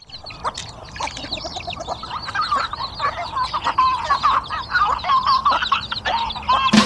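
A flock of free-range chickens clucking and calling, many short overlapping calls that grow busier and louder toward the end.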